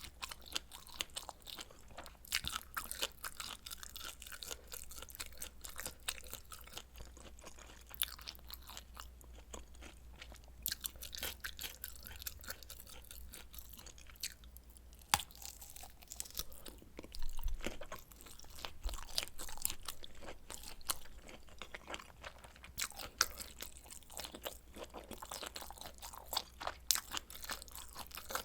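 Close-miked eating: a person chewing and biting food, with a steady run of small wet clicks and crunches and a louder cluster about two-thirds of the way through.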